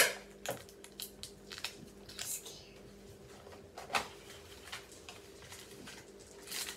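Paqui One Chip Challenge cardboard box and foil chip pouch being handled and opened: a run of crinkles, rustles and sharp clicks, the loudest at the very start and about four seconds in.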